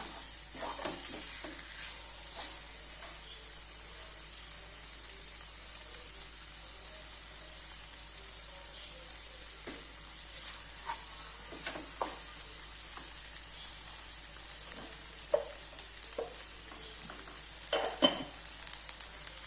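Spice masala with whole boiled eggs sizzling steadily in a pan, with a spatula stirring and scraping through it now and then; a few sharper knocks of the spatula stand out, the loudest near the end.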